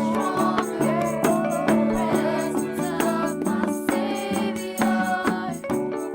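Background music with a melody over a steady beat and shaken rattle or tambourine-like percussion.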